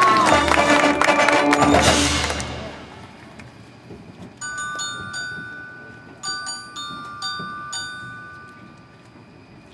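Marching band playing loudly with brass, cutting off about two and a half seconds in and fading. Then soft mallet percussion plays a few ringing bell-like notes in two short groups, some notes held ringing before they die away near the end.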